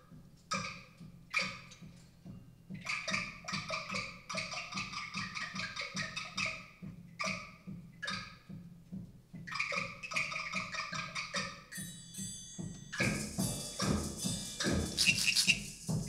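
Ensemble music of struck, ringing pitched percussion notes over a steady low beat. About three-quarters of the way in, a high metallic shimmer comes in and the playing grows fuller and louder.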